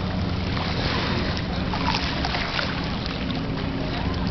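A steady low hum under an even rushing background noise, with faint voices of people nearby.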